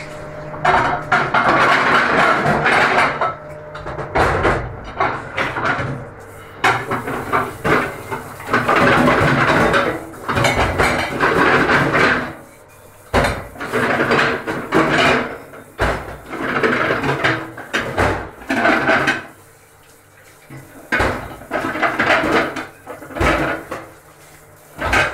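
Water from a kitchen pre-rinse spray tap running in stretches onto plates in a stainless steel sink. Ceramic plates clatter and knock against each other and the steel as they are scrubbed.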